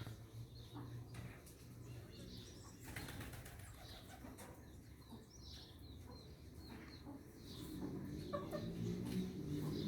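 Birds calling, short scattered chirps over a faint low hum; a louder low rumble builds near the end.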